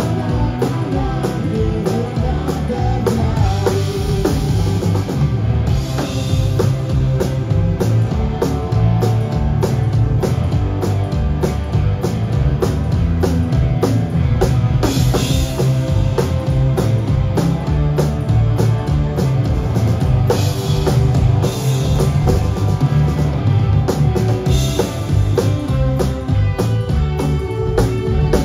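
Punk rock band playing live, heard from close to the drum kit: a driving kick and snare beat with cymbal crashes every few seconds, over electric guitar.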